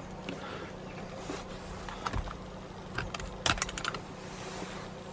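Light clicks and small metal clinks of parts and tools being handled at a car's steering column, a few scattered at first, then a quick cluster about three and a half seconds in, over a faint steady hum.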